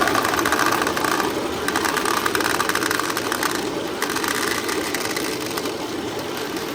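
Steady din of a pachinko parlour: a dense, rapid rattle of steel pachinko balls over the constant hum of the machines.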